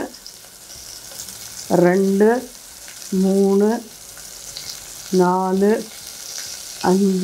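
Oil sizzling in a steel pot as small shallots, mustard seeds and slit green chillies fry. Four times, a short low steady tone sounds over the sizzle, louder than it.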